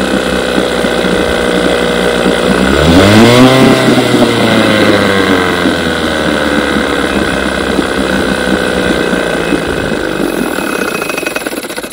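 Vintage 6 hp two-stroke outboard motor running, revving up about three seconds in and settling back to a steady run, then cutting off at the very end. It runs perfect on the rebuilt carburetor under test, showing the carburetor is fine.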